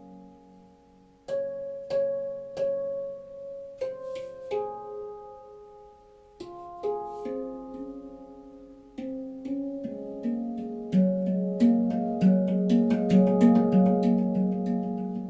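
Manik handpan tuned to the F#2 Nordlys scale, played by hand: single ringing notes struck a beat or so apart, then a quicker, denser rhythm that grows louder from about ten seconds in.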